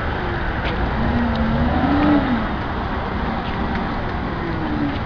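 Propane-fuelled Cat forklift engine running as the forklift drives, its pitch rising and falling about a second in and again near the end.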